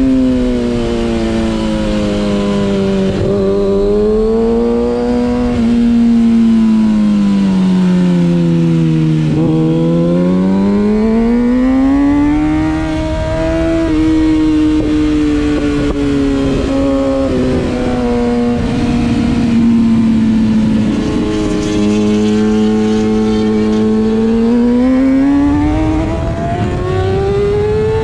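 Stock Kawasaki ZX-6R inline-four engine running hard on track: revs sweep down for about ten seconds, climb, then fall and climb again, with brief breaks in pitch at the gear changes.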